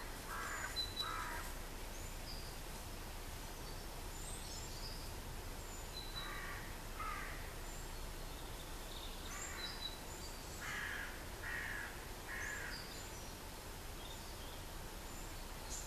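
A crow cawing several times, the harsh calls coming in pairs and short runs, with small songbirds chirping high in the background.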